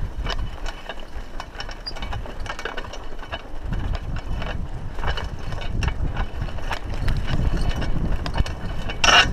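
Raleigh Ascent mountain bike rattling and clicking as it rides over a rough dirt track, with a low rumble of wind and tyres on the chest-mounted camera. Near the end the bike makes a short, loud noise, which the rider takes as not a good sign.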